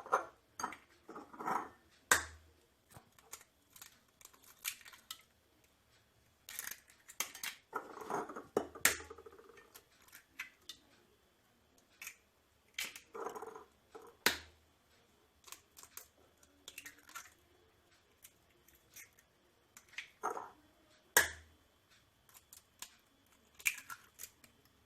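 Eggs being cracked one after another against a bowl: sharp taps and knocks of shell on the rim, several seconds apart, with small clicks and shell crackling between them.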